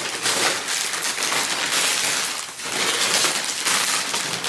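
Loud, continuous crinkling and rustling of a shopping bag and snack bags being handled as groceries are pulled out, easing off briefly about halfway through.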